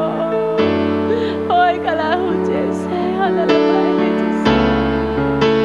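Keyboard playing slow sustained chords that change twice, with a woman's voice singing a soft wordless line over them.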